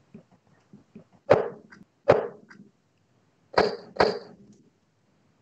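Darts striking a bristle dartboard: a few sharp thuds spaced about half a second to a second and a half apart, with fainter ticks before them.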